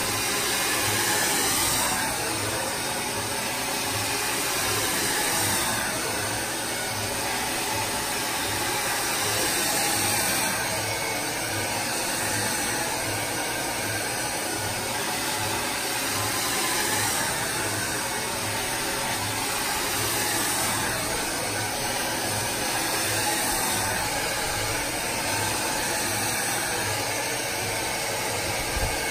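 DryBar Buttercup hair dryer running steadily, its rushing hiss swelling and easing gently as it is moved around the head during a blowout.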